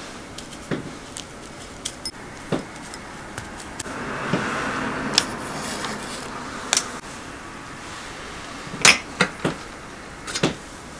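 Small glass prep bowls and a fork clinking and knocking on a metal tray and wooden counter, with a soft scraping rustle in the middle as a chocolate truffle is rolled in shredded coconut. The loudest are a few quick knocks near the end.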